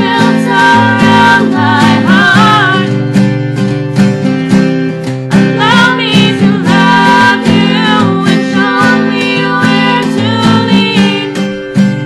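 Acoustic guitar played in a steady rhythm under a sung melody, an original acoustic song.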